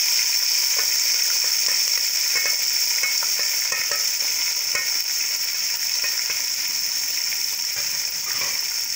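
Tomatoes, green chillies and ginger sizzling steadily in hot oil with fried onions in a cooking pot, with the spoon clicking now and then as it stirs.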